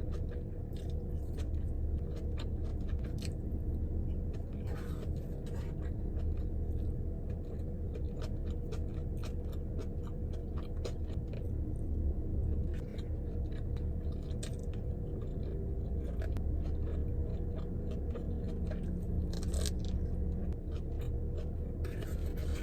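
Close-up chewing and crunching of food, with many small wet clicks and crackles from the mouth, over a steady low hum.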